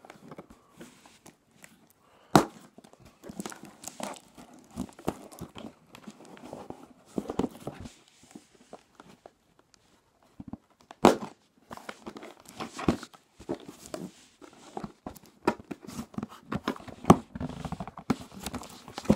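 Cardboard shipping box being opened and handled by hand: irregular tearing and crinkling of the packaging, with a few sharp knocks as the box is moved.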